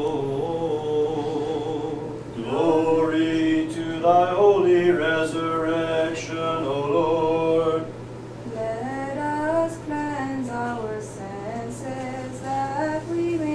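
Unaccompanied Orthodox liturgical chanting: voices sing long held and wavering notes, louder for the first half and quieter from about eight seconds in, over a steady low hum.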